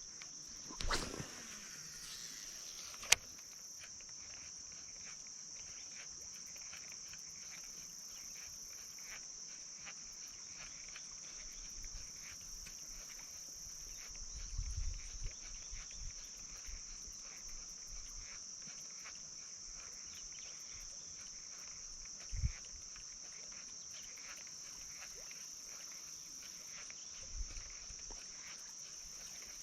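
Steady high-pitched chorus of insects, with scattered faint ticks, a single sharp click about three seconds in and a couple of soft low thumps around the middle.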